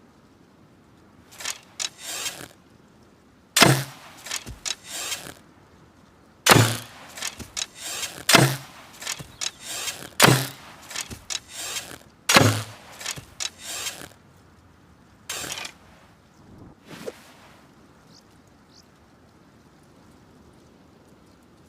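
Hunting bow being shot repeatedly: five sharp shots, each with a low thump and a short rattle after it, about two seconds apart. Lighter clicks come before the first shot and after the last.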